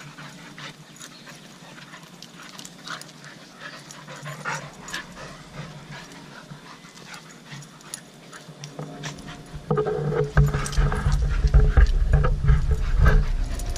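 Two dogs play-fighting on grass, panting and scuffling. About ten seconds in, a louder low rumble sets in.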